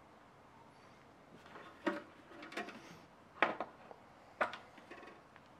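Small hammer lightly tapping nails through a sheet-metal roof into a wooden birdhouse: about four short, separate taps a second or so apart.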